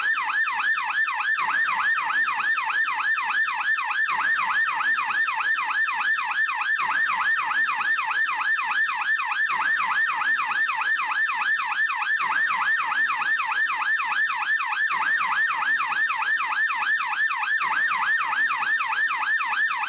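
Swiss police siren in its fast yelp mode: a rapid, steady warble sweeping up and down several times a second without a break.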